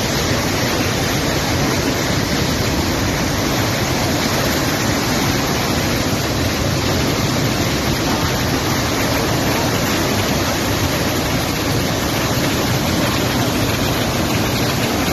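Muddy flash-flood torrent rushing and churning past, a steady, loud, unbroken sound of moving water.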